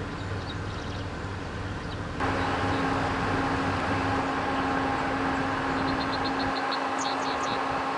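Steady outdoor rumble with a low hum that steps up and gets louder about two seconds in, and short runs of quick, high-pitched chirps.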